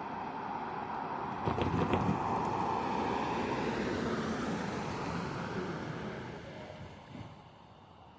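A road vehicle passing by, with a few knocks about one and a half seconds in, then fading away.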